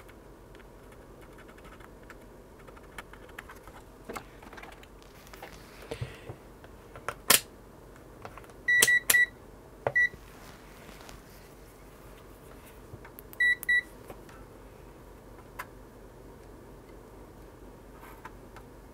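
Kaiweets digital multimeter giving short high electronic beeps as its buttons and selector are worked: a few single beeps about halfway through and a quick double beep a little later. A sharp tap and light clicks of tools on the bench come shortly before.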